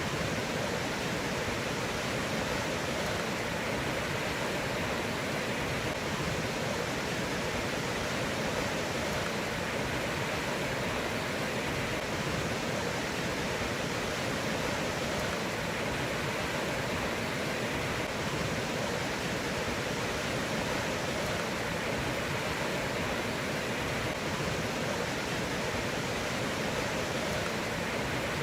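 Fast floodwater rushing steadily in a flash-flooded river, a continuous, even roar.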